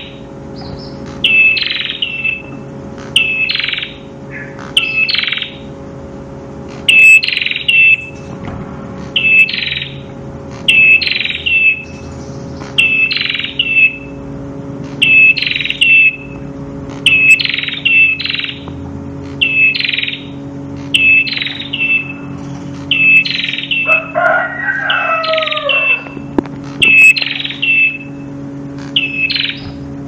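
Caged prenjak kepala merah singing loud, short, high chirping phrases, repeated every second or two, each ending in a clipped whistle. A rooster crows once in the background about 24 seconds in.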